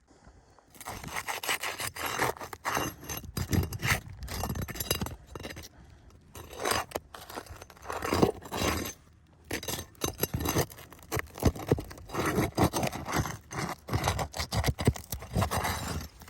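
Scraping and rubbing on a roof shingle as it is worked by hand for a repair, in irregular strokes with short pauses, starting about a second in.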